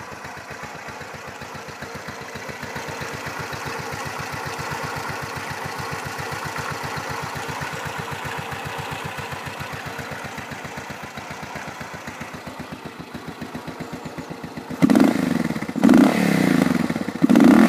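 Suzuki DR Big's big single-cylinder engine, tuned with an HRT airbox, flat-slide carburettors and a twin-pipe exhaust, idling steadily with an even, quick thud of firing pulses. About 15 seconds in the throttle is blipped three times, each rev much louder than the idle.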